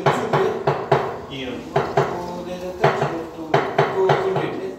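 Ceramic floor tiles being tapped down into a mortar bed with a mallet: a run of short knocks, two or three a second, with a brief pause about a second in.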